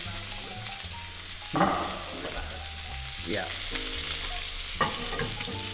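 Ribeye and filet steaks sizzling in their fat on a flat-top griddle over a gas burner, with one sharp knock about a second and a half in.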